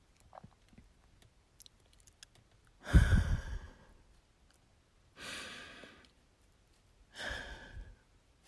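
A woman's breathy sighs close to the microphone, three long exhales a couple of seconds apart. The first, about three seconds in, is the loudest and thumps the mic with breath.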